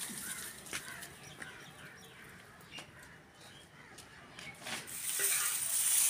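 Dry cane sticks rustling and clicking as they are handled, with a few light knocks and a hissing rustle that grows louder near the end.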